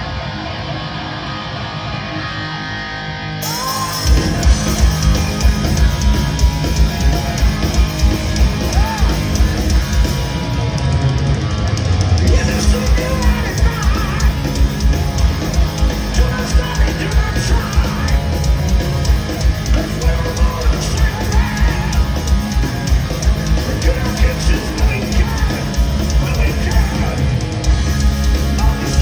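Live heavy metal band: an electric guitar riff, then the full band with pounding drums and bass comes in about four seconds in, with a singer over it.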